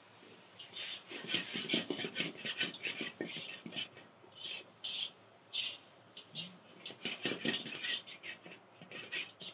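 Peppers and onions being stir-fried in a steel wok: a utensil scrapes and rattles against the pan in quick, irregular strokes, starting about a second in.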